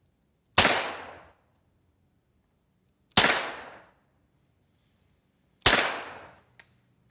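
M1895 Nagant revolver firing three shots, spaced about two and a half seconds apart, each followed by a short echo. A faint click follows the third shot.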